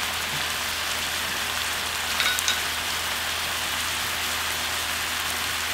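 Tofu and enoki mushrooms sizzling steadily as they simmer in a spicy soy-sauce braise, the sauce reduced to a shallow layer at the end of cooking. A brief light clink comes about two seconds in.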